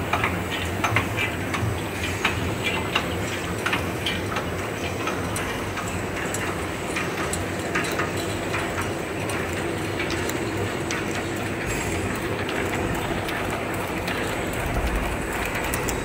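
Bouillon cube production machinery running: a rotary cube pressing machine and a paper wrapping machine, giving a steady mechanical din with rapid rattling clicks that are thickest in the first few seconds.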